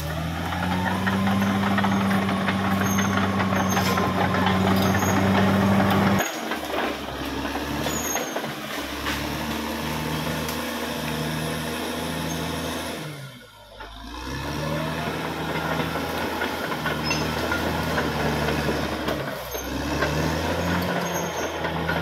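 Caterpillar D6R XL bulldozer's diesel engine working. It rises in revs at the start and holds high and loud for about six seconds, then changes abruptly to a lower, varying pitch. Near the middle it dips away briefly, then picks up again.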